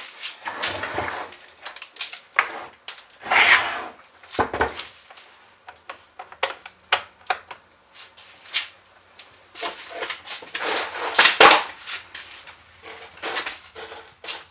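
Stihl 021 chainsaw being pull-started several times: the recoil starter cord is yanked in short noisy bursts amid clicks and clatter of handling, and the engine does not catch and run.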